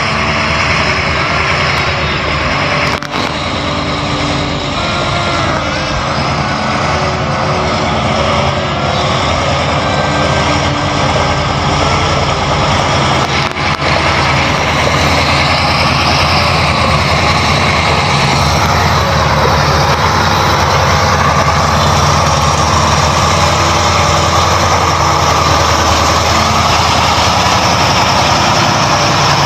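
Added diesel truck engine sound effect, running continuously: its pitch shifts up and down through the first half, then settles to a steady run. Two brief dips interrupt it, about three seconds in and near the middle.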